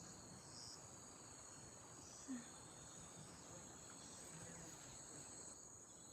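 Faint, steady, high-pitched insect chorus: a continuous shrill trilling of field insects with no break.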